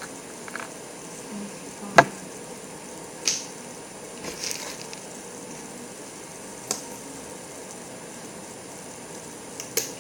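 A few scattered sharp clicks and taps, the loudest about two seconds in, over a steady faint hiss.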